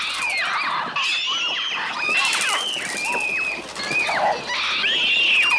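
Mixtur-Trautonium gull cries: many overlapping shrill screeches that swoop downward in pitch, several a second, making a frantic flock.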